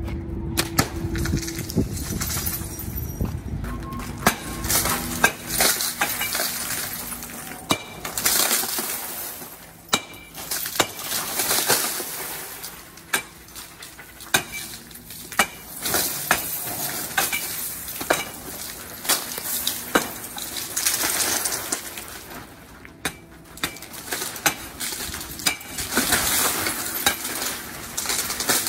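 Storefront plate glass being smashed and knocked out of its frames with a hand-held stick: many sharp cracks at irregular intervals, each followed by shards clattering and tinkling down.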